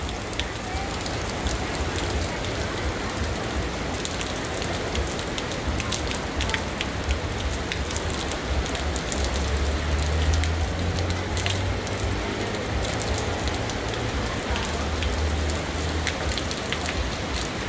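Heavy rain pouring steadily on a town street, with close drops ticking sharply on nearby surfaces. A low rumble swells around the middle and again near the end.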